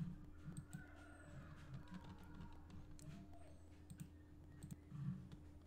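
Faint, irregular clicks of a computer mouse as a page is scrolled and clicked, over a steady low hum.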